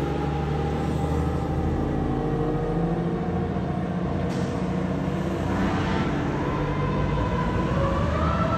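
Fire apparatus responding with its siren wailing: the pitch sinks slowly, then climbs again about two-thirds of the way through, over the heavy rumble of the truck's engine and road noise. A brief sharp sound cuts in about halfway.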